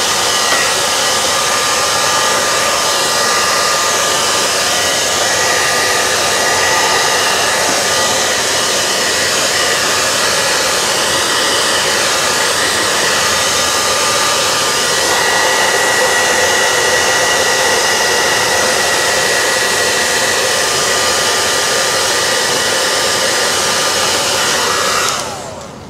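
Handheld hair dryer blowing steadily over a wet watercolour painting to dry the paint, a constant rush of air with a faint whine; it is switched off near the end.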